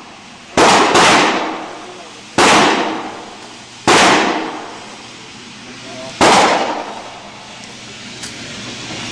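Five gunshots echoing in an indoor shooting range, the first two in quick succession, each sharp report trailing off in a long reverberant decay.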